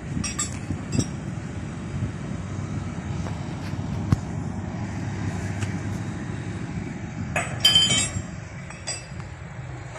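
Steady low rumble of heavy site machinery, with sharp metal-on-metal clinks from work on a steel tunnel boring machine: a couple just after the start and a loud cluster of clinks near the end.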